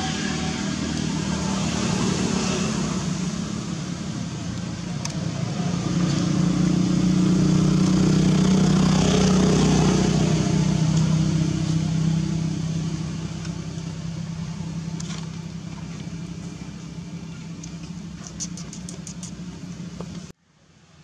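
Motor vehicle engine passing by: a low, steady hum that swells to its loudest about halfway through and then fades away, cutting off suddenly near the end.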